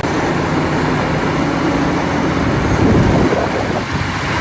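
Steady rush of water with splashing as a muddy toy excavator is washed, with a louder splash or knock about three seconds in.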